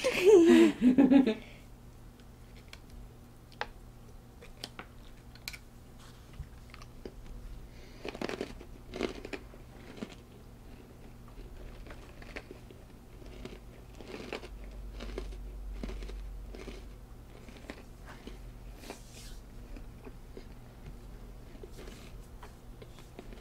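People biting and chewing crunchy sandwich cookies filled with popping candy, a quiet run of crunches and scattered small sharp clicks, with a couple of louder crunches about eight and nine seconds in.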